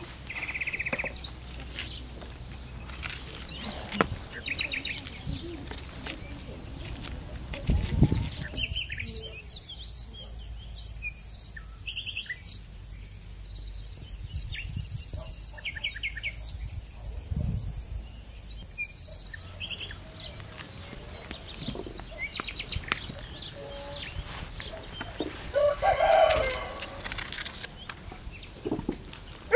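Rural yard sounds: small birds chirping and chickens clucking, with scattered knocks and rustling. There is a heavy thump about eight seconds in and a louder call from a fowl near the end.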